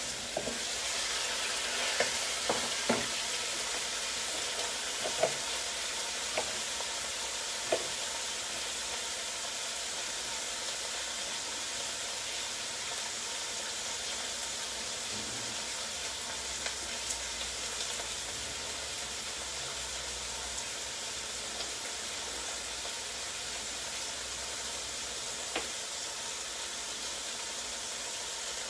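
Chopped celery, tomato and onion frying in oil in a sauté pan: a steady sizzle, with a few light knocks in the first eight seconds.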